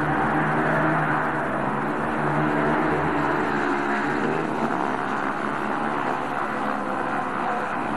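Two speedway motorcycles, 500 cc single-cylinder methanol-burning racing engines, running flat out side by side in a steady buzzing drone. The engine note weakens about halfway through.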